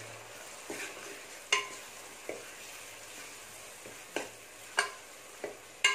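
Metal spoon stirring a thick ground tomato, ginger and garlic paste into frying onions in a metal pot, over a faint steady sizzle. The spoon clinks sharply against the pot about seven times.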